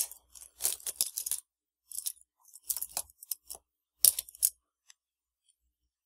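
Small metal keys clinking and rattling as a little bin of them is rummaged through by hand, in several short clusters of clicks that stop about four and a half seconds in.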